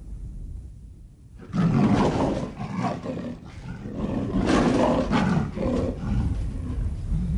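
Siberian (Amur) tiger roaring and snarling: a run of several roars that starts about a second and a half in, after a quieter opening.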